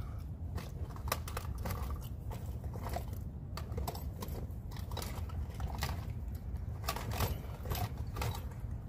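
Irregular small clicks and taps of hard plastic and metal parts being handled while a fitting and plug are worked into a plastic weatherproof electrical box, over a steady low rumble.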